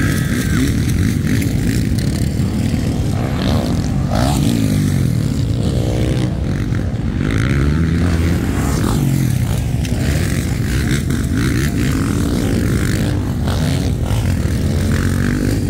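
Motocross dirt bike engines revving hard, the pitch climbing and falling again and again as the bikes accelerate and launch off the jumps.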